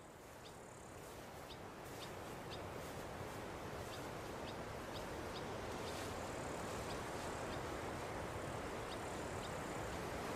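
Birds chirping in short, high calls about once or twice a second over a steady rushing outdoor noise that fades in gradually.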